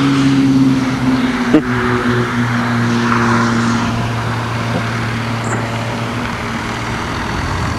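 Car engine running steadily as heard from inside the car, its hum sinking slightly in pitch as the car slows, with one sharp click about a second and a half in.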